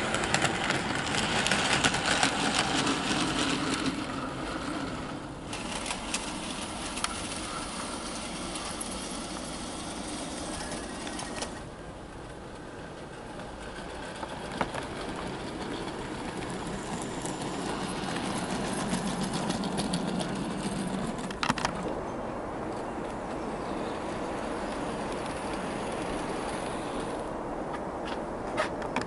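Kato/Peco model of the Ffestiniog Railway locomotive 'Prince' running on the layout: a small electric motor whirring and wheels rolling on the track, with occasional sharp clicks. The sound shifts abruptly a few times.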